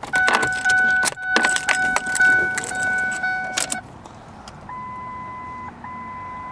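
Keys jangling and clicking in the ignition lock of a 2007 Ford Focus as the key is turned, over a repeating electronic warning chime from the car. A little under four seconds in the chime stops, and soon after a different, higher steady warning tone sounds, broken by short gaps.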